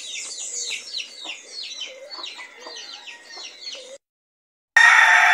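Young chicks peeping over and over in short, high, falling notes, about three a second, with soft clucks from the hen beneath. The sound cuts out about four seconds in and a loud, drawn-out chicken call starts up.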